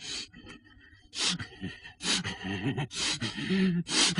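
A man's heavy, strained breathing: sharp breaths about once a second, with low groans in the middle.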